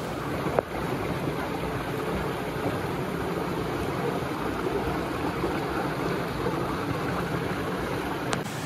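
A stream running steadily over rocks, with a sharp click about half a second in and another near the end.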